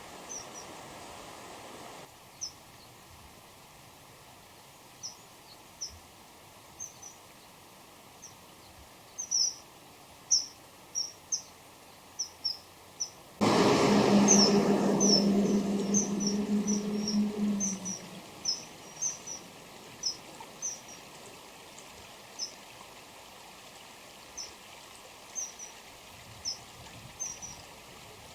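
Common kingfishers, a male and a female, calling to each other with short high-pitched notes, some single and some in quick runs, most frequent through the middle. About halfway through, a loud noise with a steady low hum comes in suddenly and lasts about four seconds over the calls.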